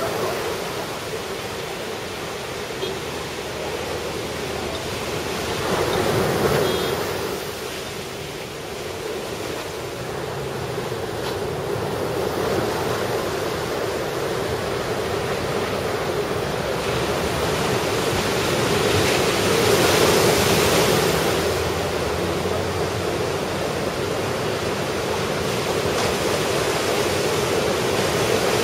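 Ocean surf from a typhoon swell washing onto the beach, a steady rush that swells louder twice, about six seconds in and again around twenty seconds in.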